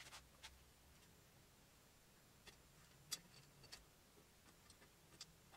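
Faint scattered clicks and light taps of hands handling small parts and plugging together wire connectors, over near silence; the sharpest click comes about three seconds in.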